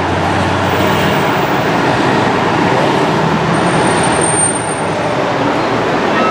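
Steady road traffic noise: engines and tyres of passing cars and buses, a continuous roar at fairly high level.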